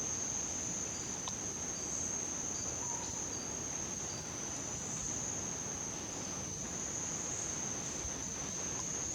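An insect's continuous, steady high-pitched trill over faint background hiss.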